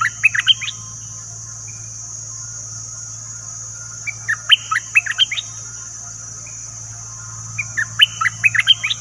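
Bulbul singing three short bursts of quick, sharp, bubbling notes, one at the start, one about four seconds in and one near the end: a caged decoy bird's song used to lure wild bulbuls. A steady high insect hiss runs behind.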